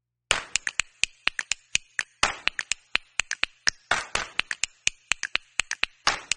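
Percussion backing track of sharp snapping clicks in a quick even rhythm, about five a second, with a heavier accent about every two seconds.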